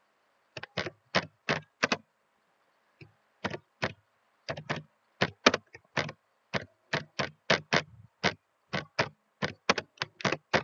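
Computer keyboard being typed on: a run of separate sharp key clicks, a few a second, with a pause of about a second and a half after the first handful.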